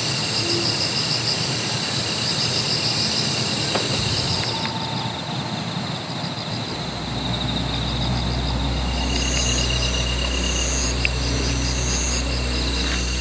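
Crickets and other insects chirping in rapid, evenly pulsed trills over a steady outdoor hiss. A low steady hum joins about seven seconds in.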